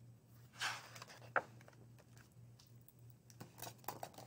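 Faint taps and rustles of a hardcover picture book being handled, with a few clicks near the end as a page starts to turn, over a steady low hum.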